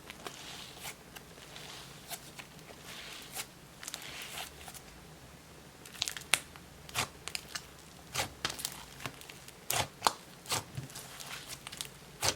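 Icy-textured slime being stretched and pressed by hand, making a soft crackling sizzle, then sharper pops and clicks from about six seconds in.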